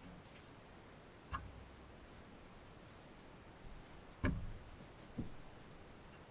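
Handling noise from hands finger-weaving thick yarn cords: a few short knocks and taps, the loudest a dull thump about four seconds in, over a quiet room hush.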